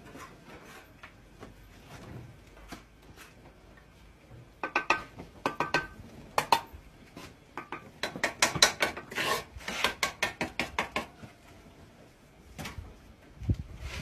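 Steel brick trowel working mortar on a brick pillar: quick scrapes across the mortar and sharp knocks as a hollow clay brick is tapped down into its bed. It starts faint, then comes in two bursts of strokes with a slight metallic ring, the busier one past the middle, and a couple more near the end.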